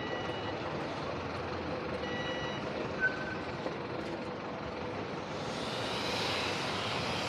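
City street traffic running steadily, with a two-tone electronic beep that repeats a few times in the first few seconds, like a vehicle's reversing alarm. A short sharp chirp sounds about three seconds in, and a hiss swells over the last two seconds.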